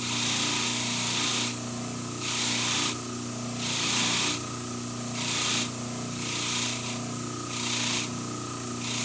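A wire wheel on a bench-mounted double-arbor motor scrubbing a small forged steel hammer head, knocking off forge scale. The steel is pressed on in repeated short passes, about one a second, each a bristly hiss over the motor's steady hum.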